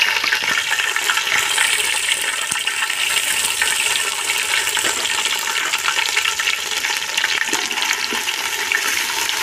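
Ginger-garlic paste frying in a large pot of hot oil: a steady, loud sizzle full of small crackles and pops.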